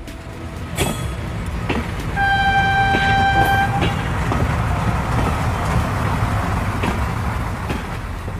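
Train running with a steady rumble and sharp clacks of its wheels over rail joints, several times. A horn sounds one steady note for about a second and a half, about two seconds in.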